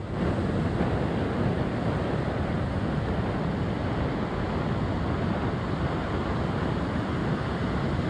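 Heavy storm surf breaking and washing up a sandy beach: a steady, even rush of water.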